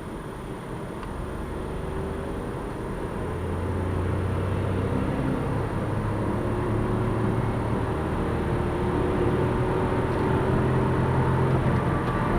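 Ford Puma's engine and road noise heard from inside the cabin: a low, steady hum that grows steadily louder, its pitch stepping slowly upward.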